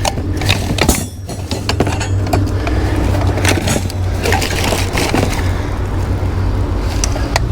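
Rusty metal hand tools clinking and clattering as they are rummaged through and picked over, many short knocks at uneven intervals, over a steady low rumble.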